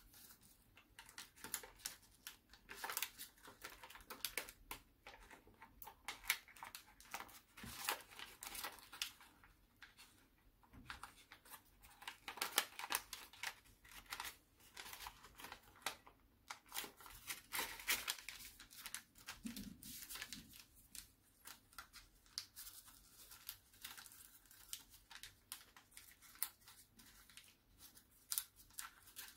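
A square sheet of origami paper being folded and creased by hand: irregular, faint rustling and crinkling with short sharp crackles as folds are pressed flat.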